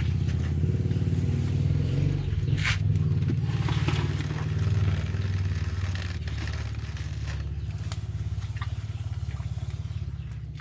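Small boat engine running steadily with a fast, even chug. A short scrape or clatter about three seconds in.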